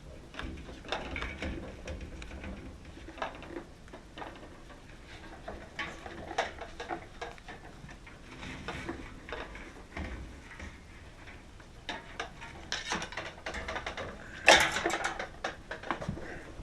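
Irregular clattering and knocking of small hard objects being handled and set down, with one sharper, louder clack about fourteen and a half seconds in.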